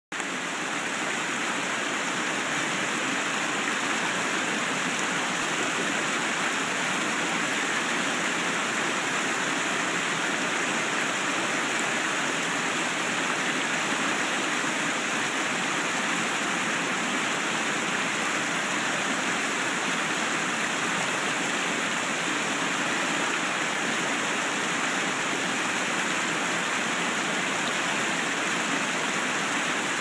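Fast-flowing mountain stream rushing and splashing over boulders in small cascades. A steady, even rush of white water.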